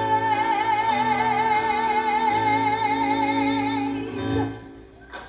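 Female singer holding the song's final high note with a wide vibrato over sustained accompaniment chords. The note and chords stop together a little after four seconds in, ending the song.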